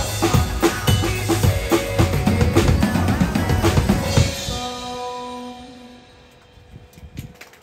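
Acoustic drum kit played along with a pop backing track: a busy groove of bass drum, snare and cymbals that stops about four seconds in, after which the backing track's last chord rings and fades away. A few claps begin near the end.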